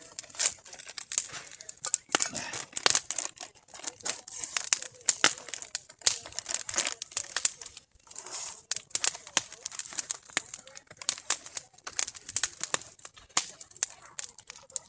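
Wood fire crackling and popping, a dense run of irregular sharp snaps.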